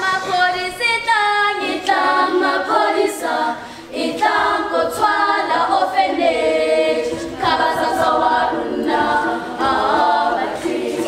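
A choir of girls' voices singing unaccompanied in chorus, with a short break between phrases about four seconds in.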